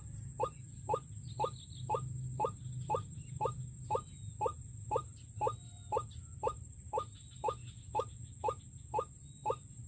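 White-breasted waterhen (ruak-ruak) lure call played back to draw the bird to the snares: a short rising note repeated at a very even pace, about twice a second.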